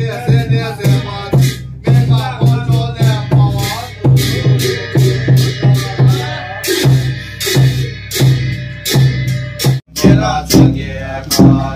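Music with a steady drum beat and a voice singing over it, briefly cutting out near the end.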